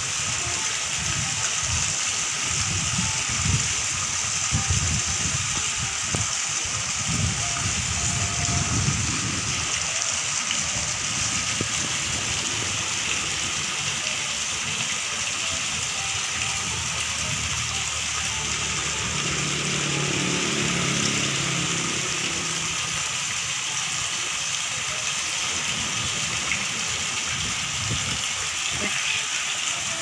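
Fountain spouts splashing water steadily into a swimming pool, a continuous hiss. A low, gusty rumble runs through the first ten seconds or so.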